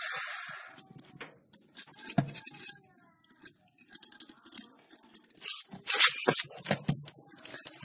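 Hands handling a bent steel-wire ring and screw eyes on a wooden log: scattered clicks, knocks and light metal clinks at irregular times, the loudest about two seconds in and about six seconds in. In the first second the drill press motor is still winding down.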